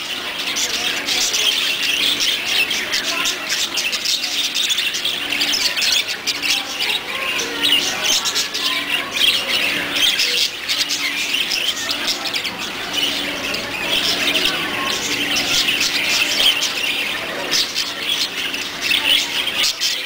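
A crowd of small caged pet-store birds, such as finches and parakeets, chirping and chattering many at once, without a break.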